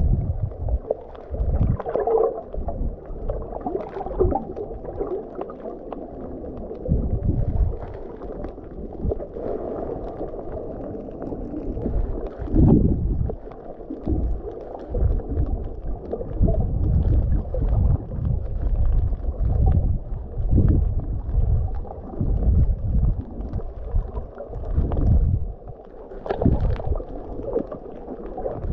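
Muffled underwater water movement heard through a submerged camera's waterproof housing: irregular low sloshing and gurgling swells.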